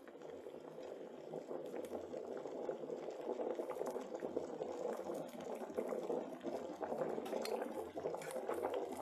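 Vegetable soup boiling in an electric kettle: dense bubbling with small pops and spatters, growing louder over the first few seconds as it comes up to a full rolling boil.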